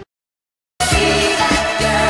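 Silence for under a second, then music starts abruptly, with a steady beat and bass notes.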